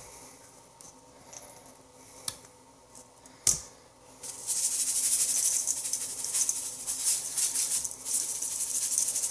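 Seasoning shaker being shaken over fish fillets from about four seconds in: a fast, dense rattle of grains that keeps going. Before that there is only quiet handling, with a light click and a knock.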